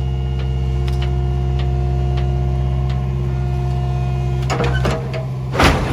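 Excavator running steadily, its engine and hydraulics droning as the arm lifts, with light regular ticks. A couple of sharp cracks come near the end.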